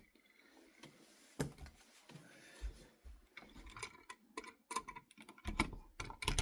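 Irregular small clicks and knocks of a Decora wall switch and its wires being handled and pushed into an electrical wall box, growing busier and louder near the end.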